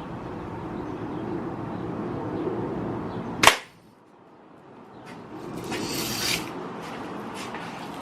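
Daisy Red Ryder BB gun firing once, a single sharp crack about three and a half seconds in, over a steady low background hum.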